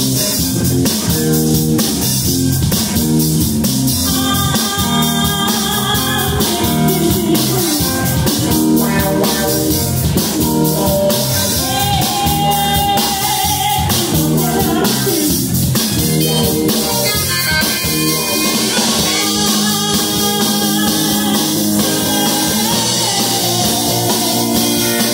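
Live rock band playing: electric guitars, bass guitar and a drum kit, with a woman singing lead into a microphone.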